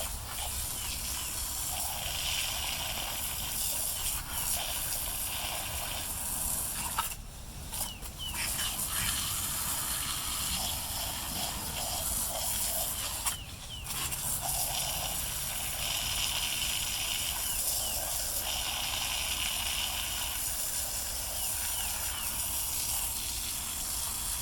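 Water jet from a hose-fed blaster nozzle spraying onto a chainsaw to wash out packed debris, a steady spray that cuts out briefly twice.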